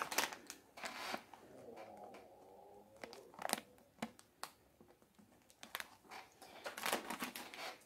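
Plastic snack-cracker bag crinkling as it is picked up and handled: a scatter of faint crackles and taps.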